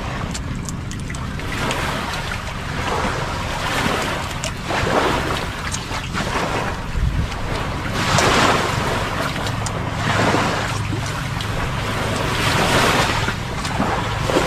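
Sea waves washing onto the beach, swelling and fading every few seconds, with wind on the microphone.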